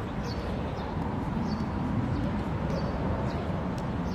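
A small bird chirps in short, high notes, repeating at fairly even spacing over a steady rumble of outdoor background noise.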